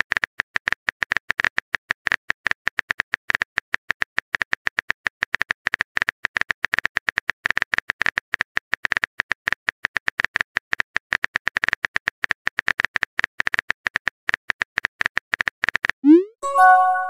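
Phone keyboard typing sound effect: a rapid run of key-tap clicks as a text message is typed out. Near the end comes a message-sent sound, a short upward swoop then a bright chime.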